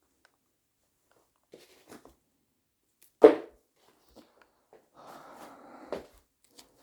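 Hands working on parts: a few light taps, one sharp knock about three seconds in, then about a second of rustling and scraping that ends in another knock.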